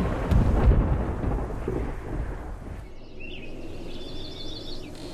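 A deep, thunder-like rumble from a superhero-film sound effect dies away over about three seconds. Faint high warbling tones follow.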